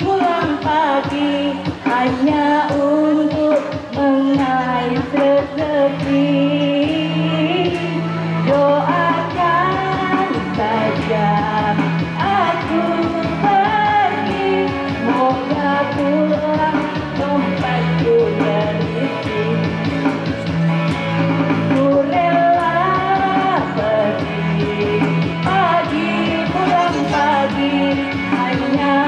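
A live band playing a song with a lead singer, the vocal line wavering over a steady bass and drum beat.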